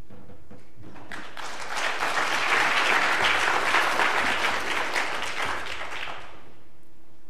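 Audience applauding at the end of a talk, starting about a second in, building up, then dying away near the end.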